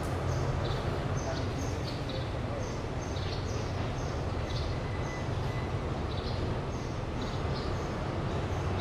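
Small birds chirping, short high chirps a few times a second, over the steady low rumble of a diesel train running at the platform.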